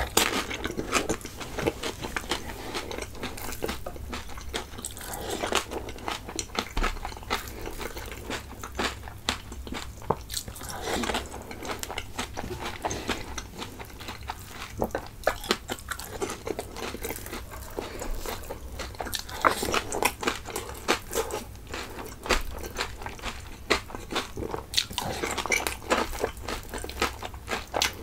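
Close-miked eating of dahi puri: crisp puri shells filled with yogurt being bitten and chewed, with many sharp crunches all the way through.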